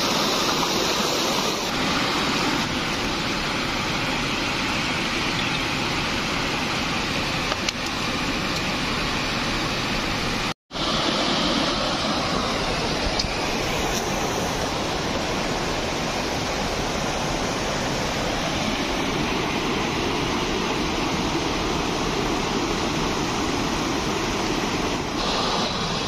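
Shallow river water rushing over rocks in small rapids: a steady noise of flowing water that cuts out for an instant about ten seconds in.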